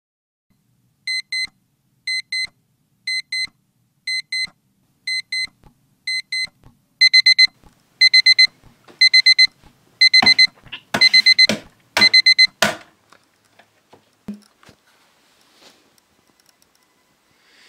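Digital alarm clock beeping: pairs of short high beeps once a second that become louder groups of four beeps about seven seconds in. Rustling and knocks join in, and the beeping cuts off about two-thirds of the way through, leaving faint rustles.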